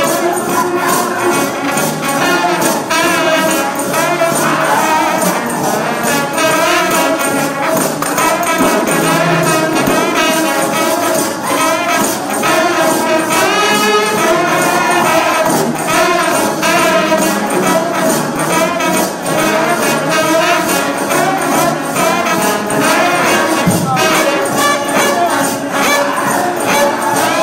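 Trombone-led gospel shout band playing a tune, the brass lines wavering with vibrato, with a tambourine keeping a steady beat.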